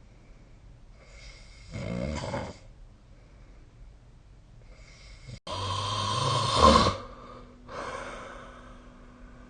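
A sleeping person snoring. A rattling snore comes about two seconds in, then a louder, longer buzzing snore through the middle that is loudest near its end, followed by a softer breath out.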